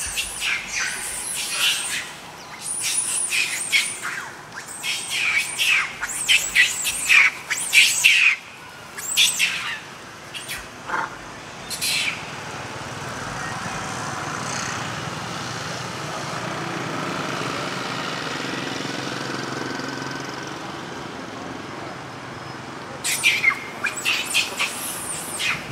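A baby monkey's high-pitched squeals and screams in repeated bursts. They stop for about ten seconds midway, leaving only a steady background noise, then start again near the end.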